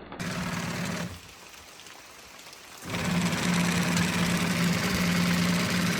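Genie IS900A screw-drive garage door opener's motor turning the drive screw with a steady hum and whir: a short run of about a second, a brief stop, then it starts again and runs on.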